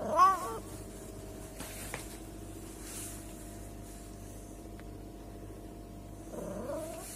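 A cat meows once right at the start, a short call that rises and falls in pitch. A fainter rising call comes near the end, over a steady low hum.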